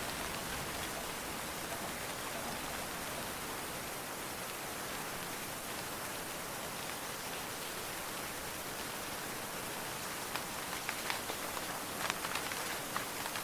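Steady rain falling, an even hiss, with a scatter of louder, sharp drop ticks in the last few seconds. No thunder.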